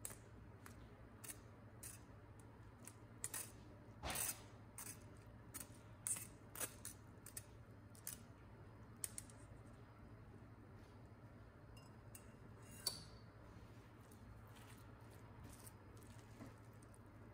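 Spatula tapping and scraping cooked orzo out of a metal bowl into a pot: a run of short sharp clicks and scrapes, busiest in the first ten seconds, with one more a little later, over a low steady hum.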